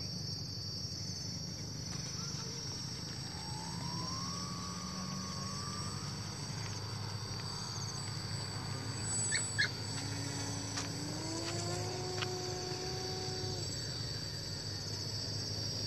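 Steady high buzzing of insects, with the faint whine of a radio-controlled model seaplane's motor rising in pitch and holding twice: a few seconds in, and again about ten seconds in, as it is throttled up on the water.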